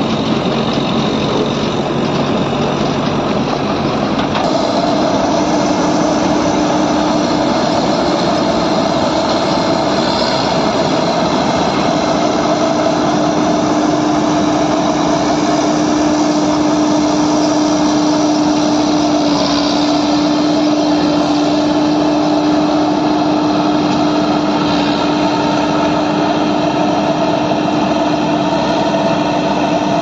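John Deere W70 combine harvester, with its 100 hp engine, running under load while cutting and threshing rice. The engine and threshing machinery give a loud, steady drone with a steady hum that comes in and brightens about four seconds in.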